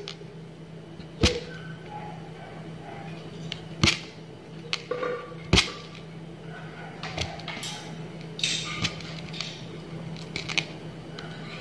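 Irregular sharp clicks and taps of a metal aari hook needle picking small gold tube beads out of a plastic lid, the beads clinking against the plastic, over a steady low hum.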